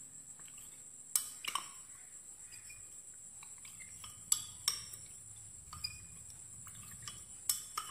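Steel spoon stirring a thin starch-and-water slurry in a small glass bowl, clinking against the glass: about six sharp clinks at irregular intervals, with soft stirring between them.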